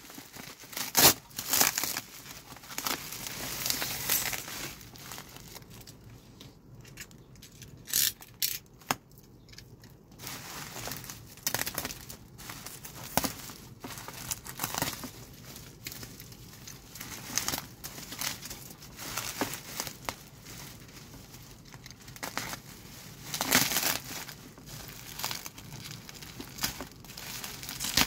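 Bubble wrap crinkling and crackling in irregular bursts as it is pulled and unwound from a parcel by hand, with taped plastic tearing loose now and then.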